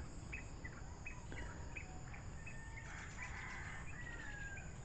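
Small birds chirping outdoors: a run of short, repeated chirps, about two or three a second, with one longer, slightly falling whistle near the middle. These sit over a steady high-pitched whine and a faint low rumble of wind.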